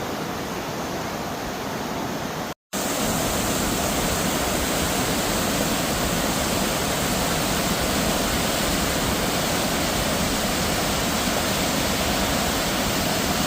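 Steady rushing of fast-flowing water, a full, even roar of a stream or cascade. The sound breaks off briefly about two and a half seconds in and comes back louder.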